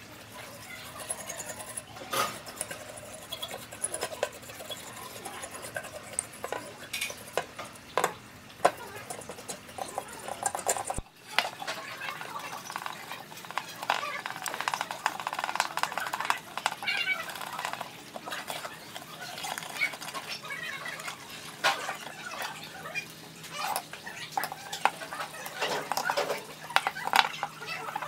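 Irregular clinks, taps and scraping of small metal parts and hand tools being handled, with an abrupt cut about eleven seconds in.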